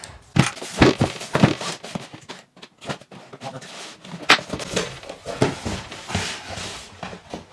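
A cardboard box being handled on a wooden tabletop: set down and its flaps opened, with scattered knocks and cardboard rustling.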